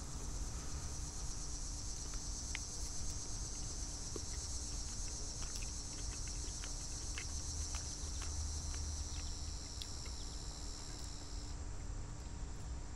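A steady, high-pitched chorus of insects, part of which cuts off about a second before the end. Light clicks and taps of a fork on a plate come through the middle stretch as someone eats.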